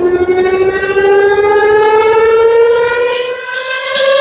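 Loudspeakers driven by a homemade TPA3116D2 class-D amplifier play electronic music: one sustained buzzy tone gliding slowly upward, siren-like. The low end drops out briefly near the end.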